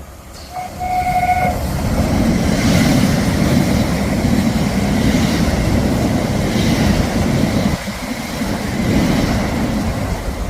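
A train gives a short horn blast, about a second long, near the start, then passes close by with a loud, steady rumble of wheels on the rails that eases slightly near the end.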